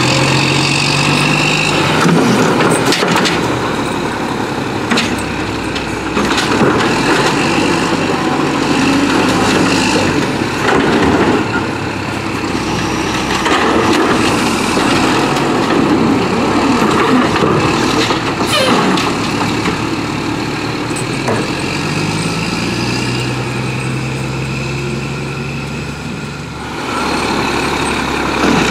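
Mack LE garbage truck with an Amrep Octo automated side-loader: the diesel engine runs up to drive the hydraulics while the side arm grabs, lifts and dumps a trash cart into the hopper. Sharp knocks and bangs come from the cart and arm throughout.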